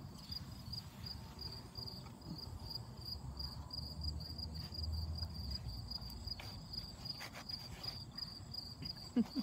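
Crickets chirping outdoors: a steady run of high, evenly repeated chirps, a few a second, over a low rumble. A brief louder sound cuts in right at the end.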